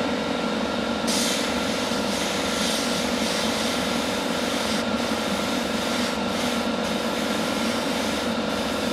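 Steady drone of a hobby spray booth's extractor fan, joined about a second in by the hiss of an airbrush spraying paint, with a few brief breaks in the spray.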